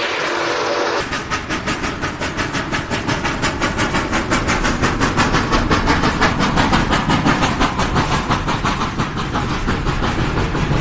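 A train running: a loud, even beat of about three to four strokes a second that starts abruptly about a second in.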